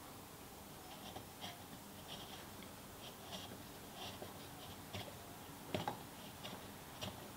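A chisel paring wood by hand inside the throat of a wooden plane body: faint, short scraping cuts, about eight of them at uneven intervals, the sharpest two near the end.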